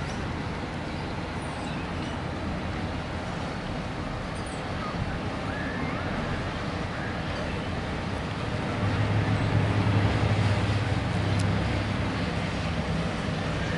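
Diesel engines of the Sydney ferry Catherine Hamlin working as it pulls away from the wharf: a steady low engine drone and hum that swells louder for a couple of seconds about two-thirds of the way in.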